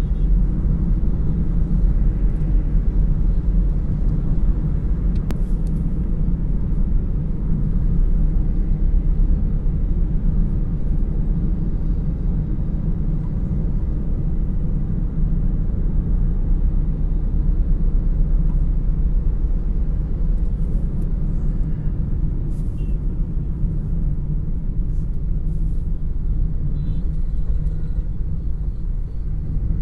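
Steady low rumble of road and engine noise from a car moving along a highway.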